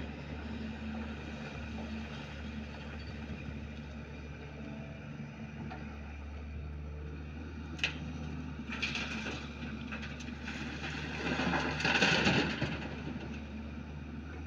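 Caterpillar tracked excavator's diesel engine running steadily as the machine works, with a sharp click about eight seconds in and a louder rush of noise about twelve seconds in.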